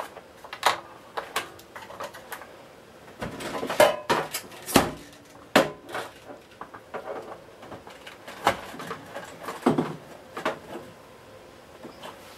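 Handle bail of a Hoover Junior 1346A vacuum cleaner being worked back into the machine's body: irregular knocks, clicks and scrapes, a few with a short ringing.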